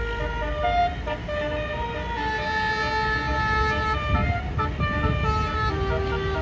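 A bus's basuri telolet air horn playing a melody of held notes that step up and down in pitch, over a low vehicle rumble.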